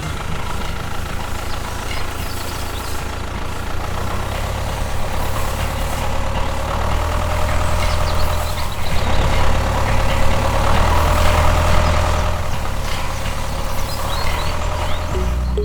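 A vehicle engine running, with a low rumble that swells and eases several times.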